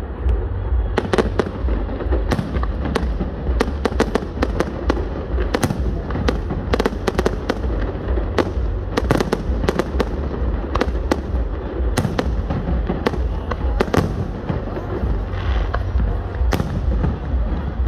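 Aerial fireworks display: a rapid, continuous run of sharp shell bursts and crackling reports over a steady deep rumble.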